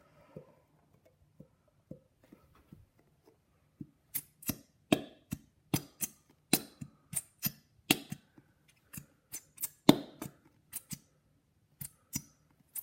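Sharp clicks and taps of glue bottles and a bowl being handled while glue is poured. They come in a quick irregular string, about two to three a second, starting about four seconds in.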